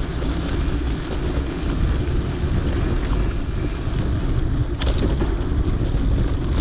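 Mountain bike rolling over a dirt trail: a steady rush of wind on the action camera's microphone with tyre rumble underneath. One sharp click or rattle about five seconds in.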